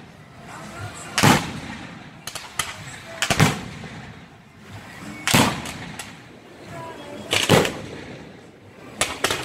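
Aerial fireworks going off, with loud bangs about every two seconds and smaller sharp cracks between them, while crackling comet tails rise.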